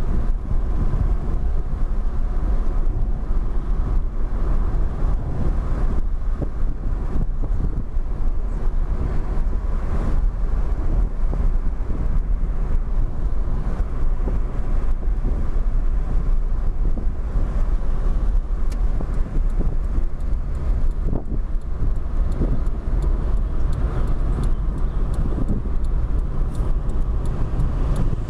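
Steady road noise heard from inside a moving car's cabin: a low, even rumble of tyres and engine at cruising speed.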